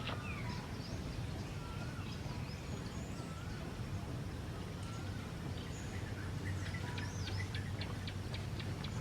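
Birds chirping over a steady low background rumble: scattered short sliding chirps, then a quick series of sharp repeated notes, about four a second, in the second half.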